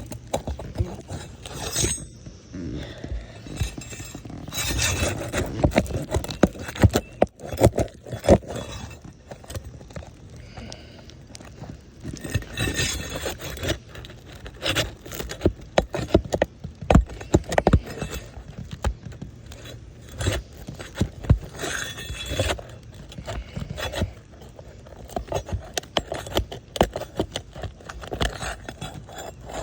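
Roofing tool scraping and clicking against roof shingles and nails as the nails are worked loose and pulled out, with frequent sharp clicks and knocks.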